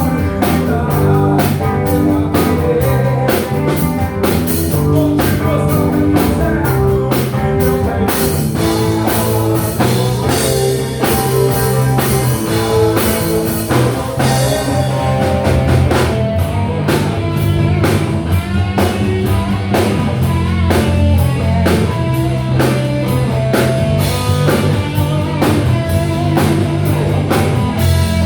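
Rock band playing live: a drum kit keeps a steady beat under guitar. The cymbals wash more heavily for several seconds in the middle.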